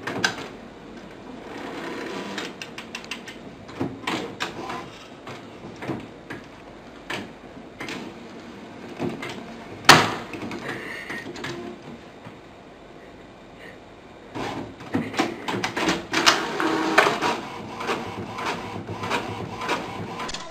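Printer running as it feeds out paper, with scattered taps and knocks as a cat paws at the cabinet drawer beneath it. One sharp knock comes about halfway through, and the clatter grows busier over the last several seconds.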